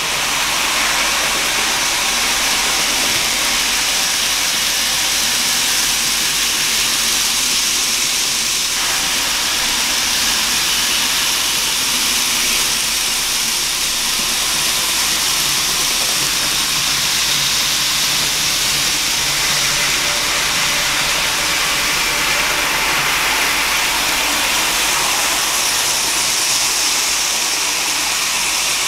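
N gauge model freight train running on the track layout: a steady, even rolling hiss of its wheels on the rails and its running gear, with the train set at a fairly high speed.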